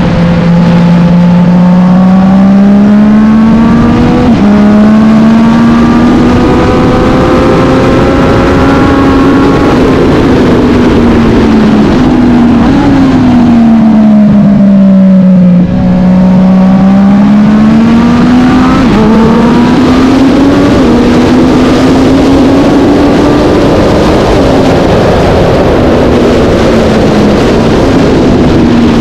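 A vintage racing motorcycle engine at full race pace, its pitch climbing under acceleration and falling away as it slows. The rising stretches break with sudden small steps at gear changes.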